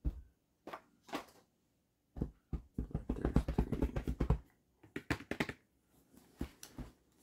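Magic: The Gathering trading cards being handled and flipped: scattered clicks and taps, with a dense run of rapid tapping and rustling about two to four seconds in.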